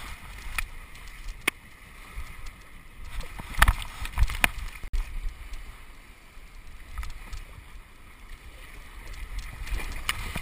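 Shallow seawater sloshing and splashing around a golden retriever wading, heard through a chest-mounted GoPro, with scattered sharp knocks and taps on the camera housing, a cluster of them a few seconds in and more near the end.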